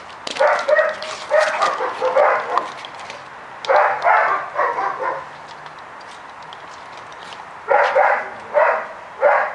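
Foxhound barking in three bouts of several quick barks each, with pauses of a second or more between the bouts.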